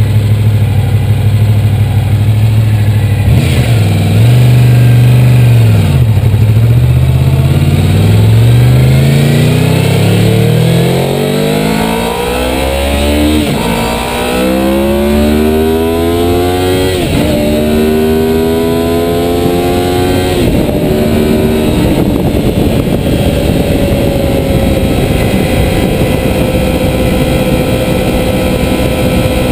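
1986 Honda VFR750's gear-driven-cam V4 engine pulling away at low revs. The revs briefly rise and fall, then climb through three upshifts, a third, half and two-thirds of the way in. It then settles to a steady cruise, with wind rush growing as speed builds.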